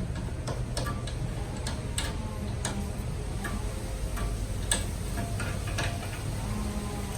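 Scattered light clicks and ticks as hardware on a ping pong table frame is tightened down by hand.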